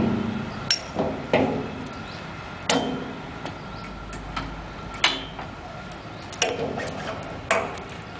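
Sharp metallic clicks and clanks, about nine of them at uneven intervals, from the steel parts of a manual hydraulic drum lifter (clamp, frame and handle) being handled with an oil drum in its clamp.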